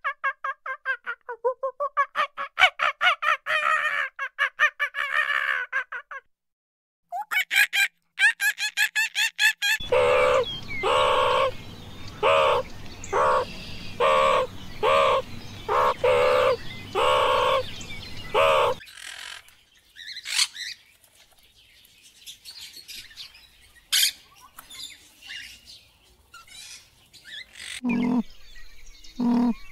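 Birds squawking: rapid runs of pitched calls, then a string of separate loud squawks over a low hum, then faint scattered chirps. A few lower-pitched calls come near the end.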